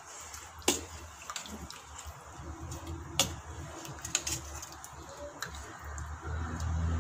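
A metal spoon stirring a thick fish curry in a metal pot: soft wet slopping and squelching, with a few sharp clinks of the spoon against the pot, the clearest about three seconds in.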